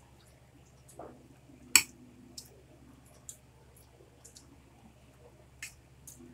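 Spoons and forks clicking and clinking against plates while eating, a scattering of irregular clicks with the sharpest about two seconds in.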